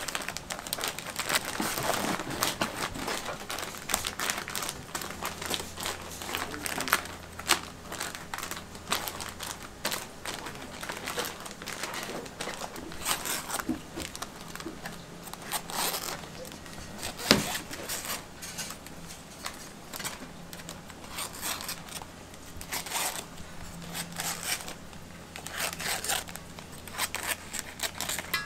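Kitchen work at an okonomiyaki griddle: a dense, irregular run of crackling and sharp clicks over a steady low hum, with one louder knock about 17 seconds in.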